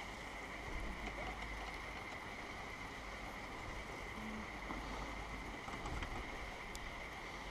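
Poma fixed-grip chairlift terminal with a first-generation Alpha station running: the bullwheel turning as chairs come round it. A steady mechanical noise with a constant high hum, and wind rumbling on the microphone.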